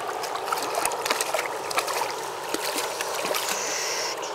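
River current running over a stony bed, with repeated small splashes as a hand-held trout thrashes in the shallow water.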